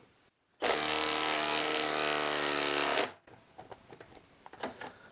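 Milwaukee Fuel impact driver hammering a hex-head lag bolt into dense stump wood. It starts just under a second in, runs steadily for about two and a half seconds, then stops, followed by a few faint clicks.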